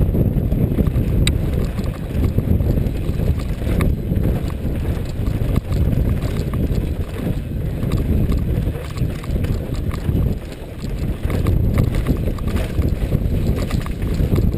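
Mountain bike descending a dirt singletrack, heard from a helmet-mounted camera: steady wind rush over the microphone with tyre rumble on dirt, and the bike rattling over bumps with irregular clicks and knocks.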